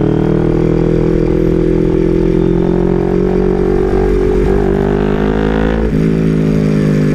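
Two-cylinder motorcycle engine running through a Villain aftermarket exhaust, held at steady revs, with a slight rise in pitch about four and a half seconds in and settling back about a second later. The note is deep and smooth, not raspy.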